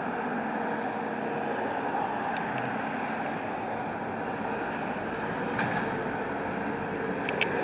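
Steady running of a heavy truck engine, with a few faint clicks.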